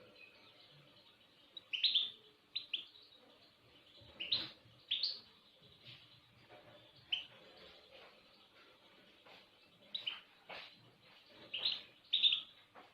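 Small songbird chirping in short, separate calls, one or two at a time, at irregular gaps of about a second or more.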